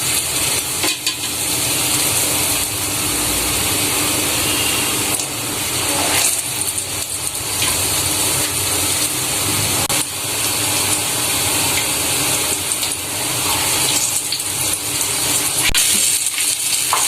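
Batter-coated broad bean fritters deep-frying in hot oil: a steady, dense sizzle with a few sharper crackles.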